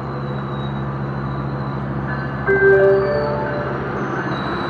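Metrolink bilevel passenger coaches rolling along the station platform, with a steady rumble and a low hum. About two and a half seconds in, a few clear high ringing tones sound briefly over it.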